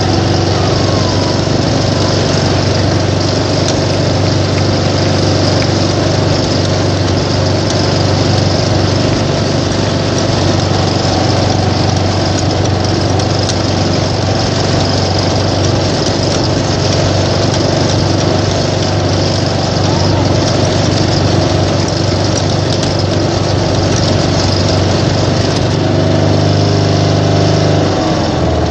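Small lawn-mower engine running steadily under load, then shutting down just before the end.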